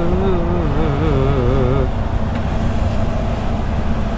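A voice singing a long, wavering held note of a Turkish song, breaking off about two seconds in. Under it and after it, the steady drone of the truck's engine and road noise inside the cab.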